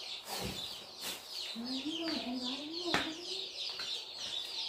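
Chicks peeping: a steady run of short, high, falling peeps, about six a second. A longer wavering lower call starts about one and a half seconds in, and a few sharp knocks sound near the start and about three seconds in.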